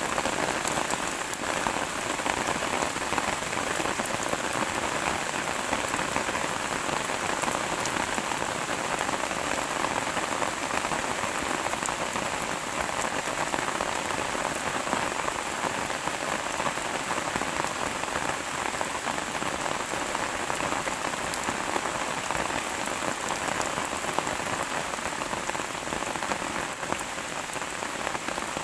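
Steady rain falling on a surface, a dense even patter of many drops with no let-up or change.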